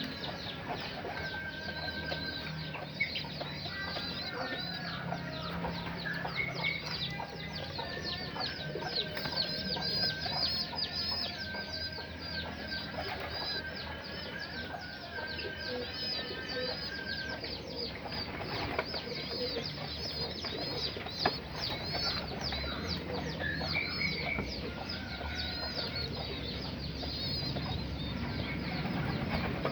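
Racing pigeon squab begging with rapid, high squeaky cheeps, several a second, and bursts of wing flapping while a dove feeds it.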